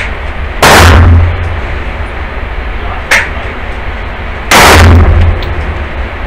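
Two 9mm handgun shots about four seconds apart. Each is loud enough to clip the microphone and rings on in the enclosed indoor range. A shorter, quieter sharp crack comes between them, about three seconds in.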